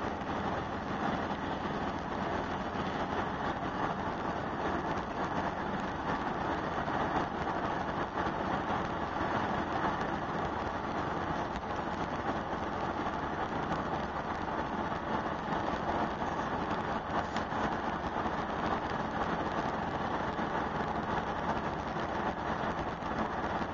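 Steady road noise inside a car at highway speed: tyres on the road and wind rushing past the cabin, unchanging throughout.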